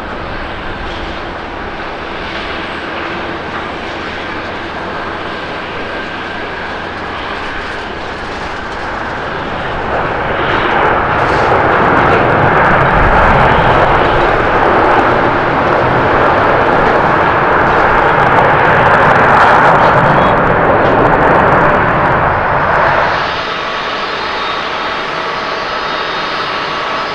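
Boeing 787-9 jet engines after touchdown: a steady run that swells about ten seconds in into a loud, broad roar of reverse thrust during the landing rollout, lasting some twelve seconds. Near the end it gives way to the quieter, steadier sound of an Airbus A350-900's Rolls-Royce Trent XWB engines on final approach, with thin steady whining tones.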